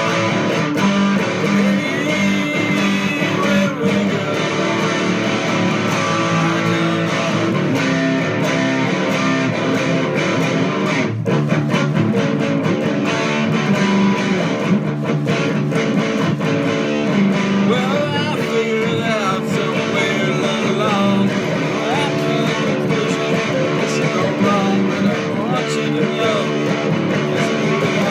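Music played on strummed and plucked guitar, running steadily throughout.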